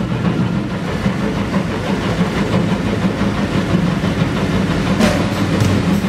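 A boat's engine running steadily with a low drone, with water churning past the hull.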